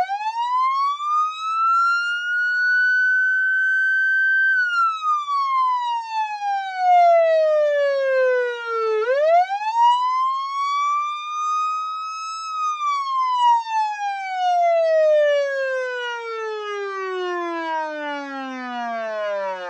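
Police car siren in a slow wail. It climbs in pitch, holds high and falls, then climbs and holds again. The last fall runs long and slides steadily lower as the siren winds down near the end.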